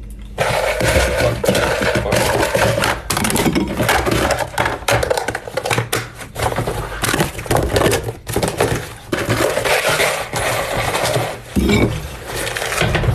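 Busy clattering and clinking of hard objects, many small knocks in quick irregular succession.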